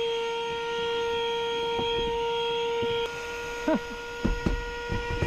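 Airbank D6 Pro rechargeable electric SUP pump running with a steady, even-pitched hum as it inflates an inflatable paddleboard to a 15 psi setting. The hum drops in level about three seconds in, with a few light knocks near the end.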